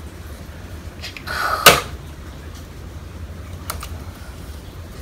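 Wiring-harness connectors being pushed back onto a Ram 1500's engine computer (PCM): a short scrape ending in one sharp click about a second and a half in, then a fainter click near four seconds, over a steady low hum.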